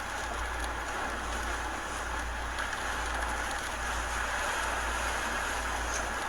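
Hurricane wind and driving rain as a steady rushing noise, with heavy low rumble of wind buffeting the microphone.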